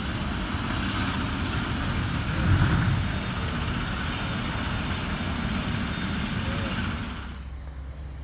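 Claas Jaguar 970 self-propelled forage harvester chopping standing corn under load, a loud steady rush of chopped silage blown through its spout over the engine's rumble, with one brief louder swell. About seven seconds in the rushing stops and only a quieter, steady low engine drone is left.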